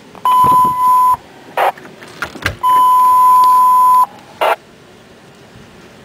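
Fire-dispatch alert tones over a radio scanner: two loud, steady, high beeps of the same pitch, the first just under a second long and the second about a second and a half, each followed by a brief burst of radio static. The tones alert the stations about to be dispatched.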